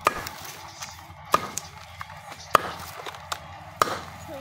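Billhook chopping dry grass and palm frond on a wooden block: four sharp chops roughly a second and a quarter apart, with a few lighter ticks between them.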